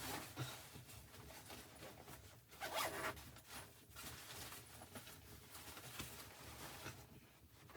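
Faint rustling and scraping handling noises in a few short bursts, the loudest about three seconds in.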